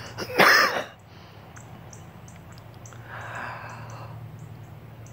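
A boy catching his breath after a long shout: a sharp, loud gasping inhale about half a second in, then a softer, slower breath out around three seconds in.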